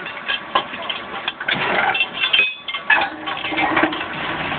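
Steel hand tools clinking and knocking against rail fastenings on concrete railway sleepers, in irregular sharp strikes, over the Huddig 1160 backhoe loader's engine running steadily underneath.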